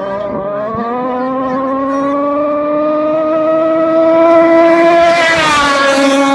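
Racing boat's engine at full throttle, climbing in pitch as the boat closes in, then dropping in pitch with a rush of spray noise as it passes about five seconds in.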